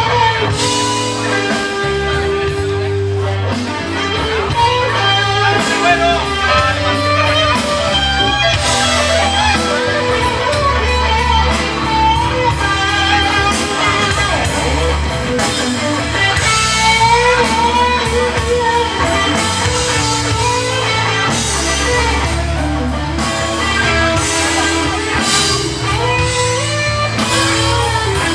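Live band playing classic rock and blues: electric guitar lines over bass and drums.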